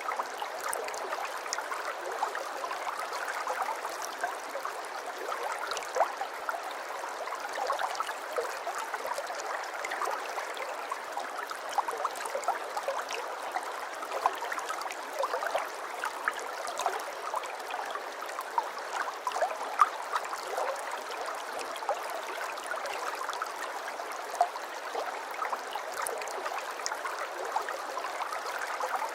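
River water flowing steadily, a continuous rushing with many small splashes and gurgles.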